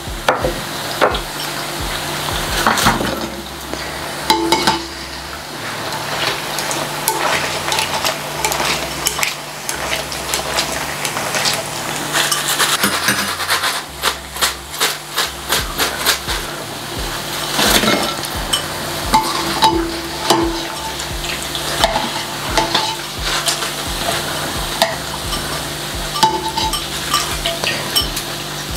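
Chana dal pakoda deep-frying in hot oil in a stainless steel pan, sizzling steadily, with repeated clinks and scrapes of a wire-mesh skimmer against the pan as the fried pieces are lifted out and drained.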